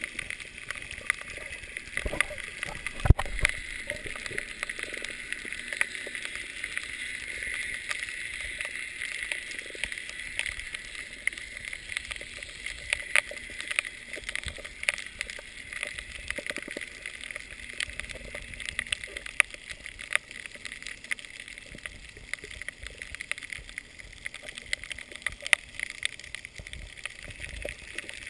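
Underwater sound picked up by a GoPro in its waterproof housing: a steady hiss of water with many small clicks and crackles scattered throughout, and a few dull thumps about two and three seconds in.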